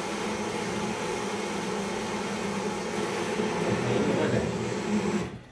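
Handheld butane gas torch on a canister burning with a steady hiss as it heats a small traditional pressure popcorn machine. It is shut off suddenly about five seconds in.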